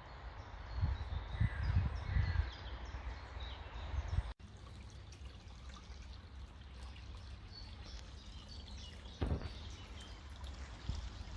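Water trickling and lapping, with many short bird chirps over it. Low rumbling gusts sound in the first few seconds, then the sound breaks off abruptly about four seconds in and carries on quieter. There is a single low thump near the end.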